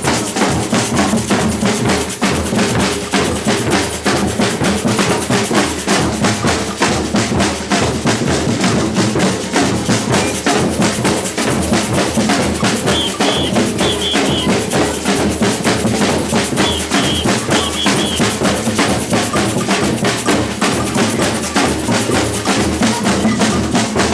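Batucada percussion ensemble playing a fast, steady samba rhythm on bass drums and snare drums. Two short runs of high notes sound over the drumming in the second half.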